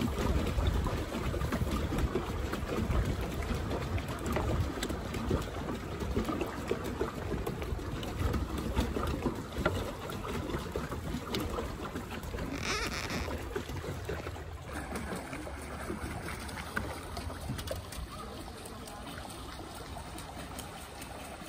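Pedal paddle boat's paddle wheel churning and splashing the water, with a low rumble under it. A brief hiss about 13 seconds in; the churning grows quieter and steadier over the last several seconds.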